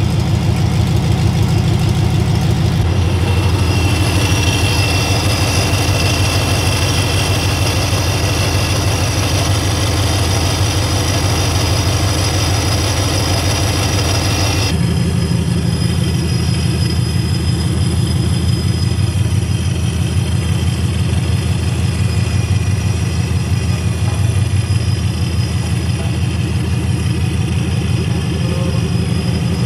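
Supercharged 5.7 Hemi V8 of a Ram 1500 idling steadily and loudly, exhausting through freshly fitted long-tube headers with the rest of the exhaust system not yet installed. The sound shifts abruptly twice, about 3 and 15 seconds in.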